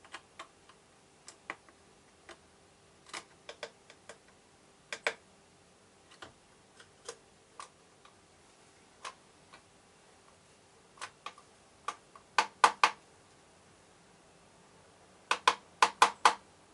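A tit's bill pecking at the feeder: sharp, irregular taps, with two quick runs of louder taps, one about twelve seconds in and one near the end.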